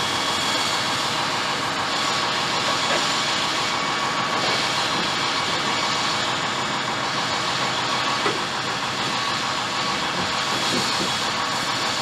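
Concrete saw cutting steadily through the reinforced concrete wall of a bell tower, a constant grinding hiss with a few steady tones running over it.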